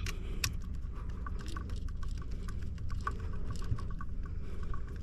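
Small irregular clicks and ticks of a screwdriver turning a terminal screw down on a light switch, tightening a wire under it.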